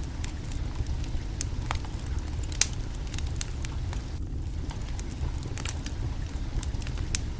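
Wood fire burning under a cooking pot, crackling with scattered sharp pops over a steady low rumble; one pop about two and a half seconds in stands out as the loudest.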